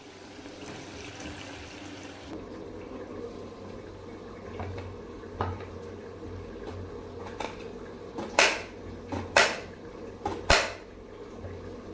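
Knife slicing a cucumber on a ceramic plate: a few faint taps, then three sharp clicks of the blade striking the plate about a second apart, over a steady low hum.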